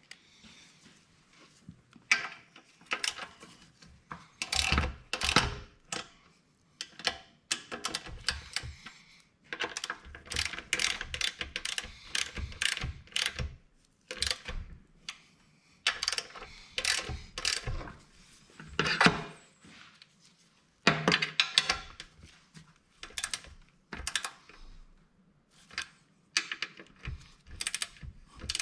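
Wrench ratchet clicking in short runs as bolts on a small diesel engine's fuel-tank bracket are tightened, mixed with knocks of the tool and parts being handled.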